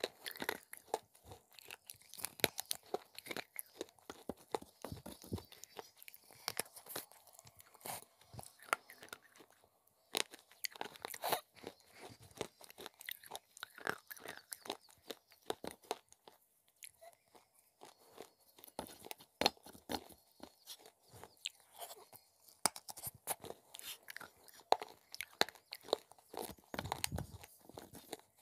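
Close-up crunching and chewing of clay pieces dipped in a wet white paste: a dense run of sharp crackles and bites, with a short pause about ten seconds in.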